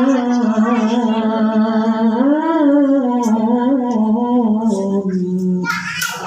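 A single voice giving melodic Qur'an recitation (tilawah), holding one long ornamented note whose pitch wavers and turns slowly. The note ends about 5.7 s in, followed by a short sharp hiss near the end.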